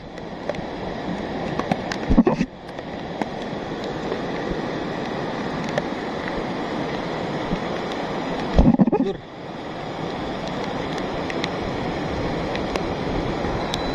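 Muddy flash floodwater carrying lahar material rushing down a volcanic sand river channel: a steady rushing noise, with two brief low bumps about two and nine seconds in.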